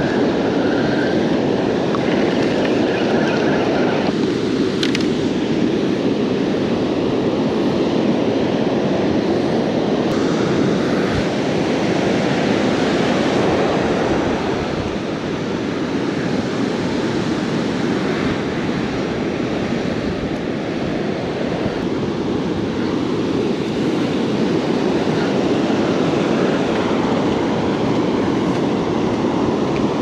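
Steady, unbroken roar of breaking ocean surf, a dense low rumble with no distinct strokes.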